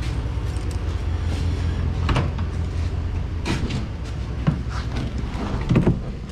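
Car door latch clicking and the door of a 1971 Dodge Demon opening, with a few knocks as someone climbs into the driver's seat. Under it runs the steady low hum of an idling vehicle.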